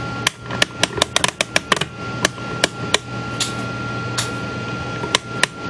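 Ratchet of an Ollie Baker-type clock mainspring winder clicking as its crank is turned: a quick run of clicks in the first two seconds, then single clicks every half second or so. The winding arbor's hook has not yet caught the spring.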